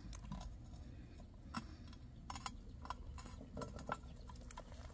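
Faint scattered clinks and scrapes of a metal lid lifter and a coal-covered cast-iron Dutch oven lid as the lid is raised off the pot.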